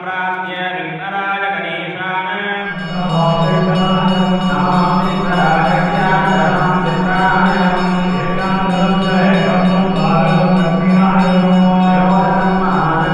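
Male priests chanting mantras together on a steady low pitch; about three seconds in the chanting grows louder and fuller.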